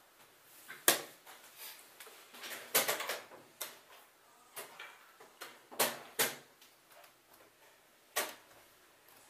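Sharp wooden clicks and knocks of chess pieces set down on a board and a chess clock's button pressed during a fast game, about seven times, with a short cluster about three seconds in.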